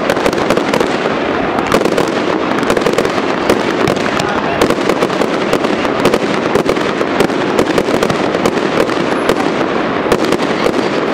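Aerial fireworks going off in quick succession: a continuous run of rapid pops and crackles from bursting shells, with no pause.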